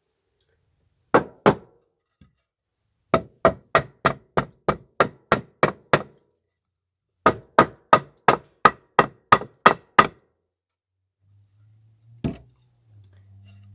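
Repeated hard knocks on a wooden board, struck up into place with a block of wood: two blows, then two quick runs of about nine blows each at roughly three a second with a short pause between, and one last blow near the end.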